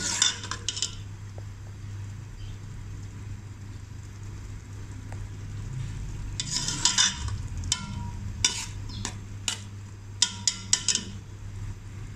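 Steel spoon scraping and clinking against an aluminium pot while stirring chopped bottle gourd frying in masala, in bunches of strokes near the start, around the middle and near the end, with a light sizzle in between.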